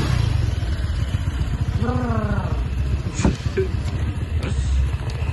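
Motor scooter's small engine idling with a steady low rumble. There is a short call from a voice about two seconds in and a sharp click a little after three seconds.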